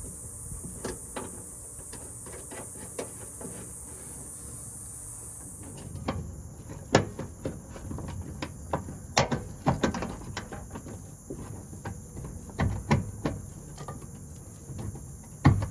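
Irregular metallic clicks and knocks of parts being worked into place inside a 1988 GMC pickup door: lock rods and handle hardware. The sounds are faint and sparse at first over a steady high hiss, then sharper and louder from about six seconds in.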